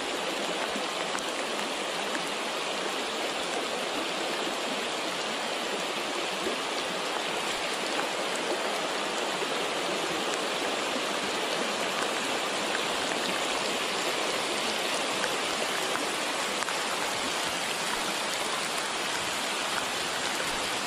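Shallow river running over rocks, with rain falling on the water; a steady, even hiss.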